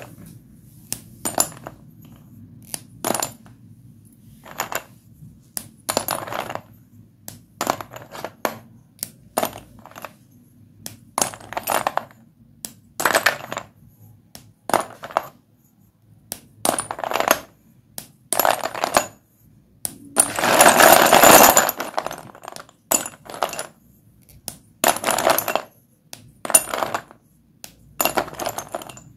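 Sticks of white dustless chalk being snapped and crumbled: a run of sharp cracks and short crunches, with one longer, louder crunch about two-thirds of the way through.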